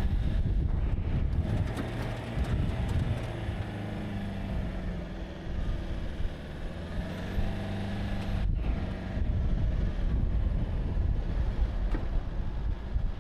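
Toyota Fortuner's engine revving up and down under load as the 4x4 pushes through deep sand with momentum. Wind noise buffets the microphone, and the sound drops out briefly about two-thirds of the way through.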